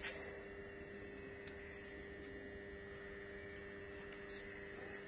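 Faint steady hum with a few light clicks, the first and strongest right at the start and others about a second and a half and four seconds in.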